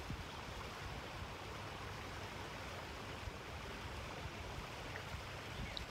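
Steady rush of flowing river water, with an uneven low rumble underneath.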